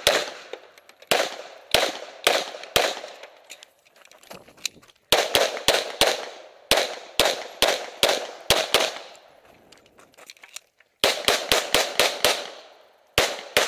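Semi-automatic pistol fired in fast strings, shots about a fifth of a second apart, each with a short echoing tail. The strings are broken by pauses of a second or more as the shooter moves to new targets.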